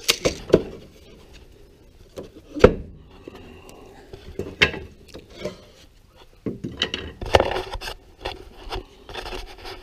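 Loose wooden chair slats knocking and scraping against each other and the workbench as they are pushed aside by hand. There are a few sharp wooden knocks, the loudest about two and a half seconds in, and a longer stretch of rubbing and scraping near the end.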